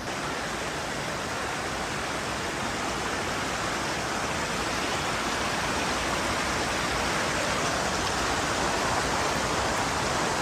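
Rushing water, a steady even rush that grows slightly louder.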